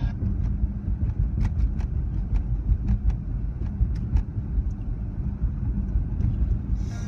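Moving car heard from inside its cabin: a steady low rumble of road and engine noise, with scattered light clicks.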